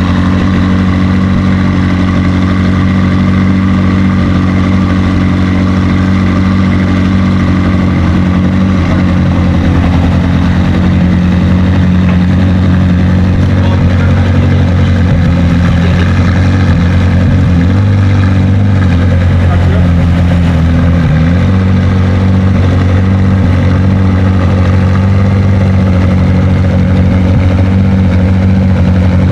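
Car engine idling steadily with a low, even note; the pitch dips briefly about two-thirds of the way through.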